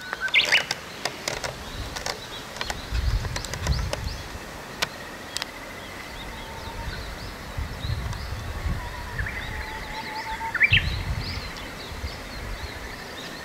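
Outdoor garden ambience: small birds chirping and calling at intervals, with a few sharp clicks in the first half and low wind rumble on the microphone several times.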